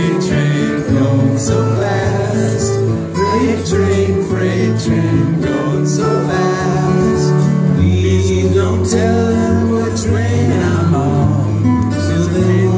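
Live country-bluegrass music with acoustic guitar playing and low bass notes running underneath.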